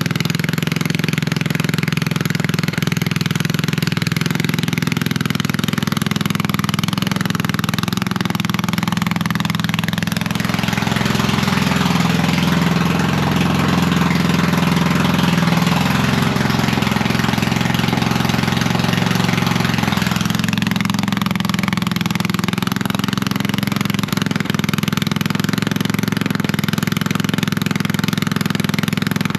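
Straight-piped Husqvarna ride-on lawn mower engine running steadily with an open exhaust. It grows louder and harsher from about ten to twenty seconds in, then settles back.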